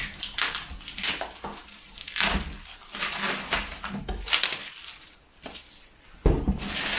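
Shiny plastic gift wrap crinkling and tearing as it is pulled off a framed picture, in short irregular rustles that grow loudest and densest near the end.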